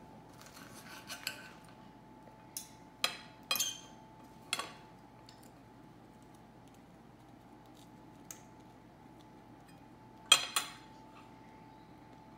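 Metal knife and fork scraping and clinking against a ceramic plate while cutting a waffle: a soft scrape in the first couple of seconds, a handful of sharp clinks a few seconds in, one lone clink later, and the loudest pair of clinks near the end.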